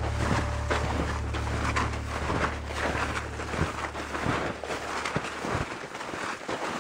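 Wind buffeting the camera's microphone: a low rumble under gusty crackling, the rumble dropping away about five and a half seconds in.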